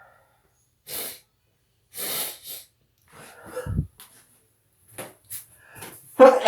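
A person sneezing repeatedly, with short noisy breathy bursts in between, a dull thump about halfway through, and the loudest sneeze near the end. The person puts the sneezing down to fall allergies.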